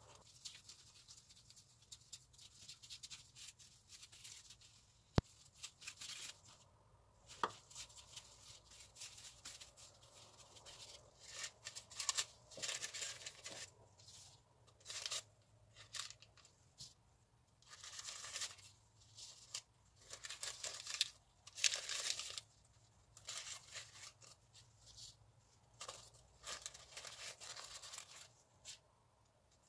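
Gloved hands setting balls of bread-roll dough into a parchment-lined round cake tin: irregular crinkling and rustling of the baking paper and gloves, sparse at first and denser from about a third of the way in. A single sharp click about five seconds in.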